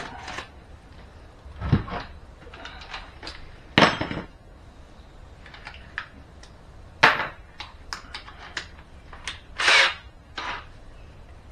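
Irregular sharp knocks and clunks, about six spread over the stretch, from a wooden board and tools being handled and set in place.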